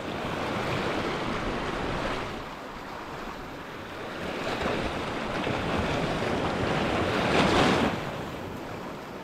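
Sea surf washing over and breaking against shoreline rocks, swelling and easing, with a louder surge about seven and a half seconds in.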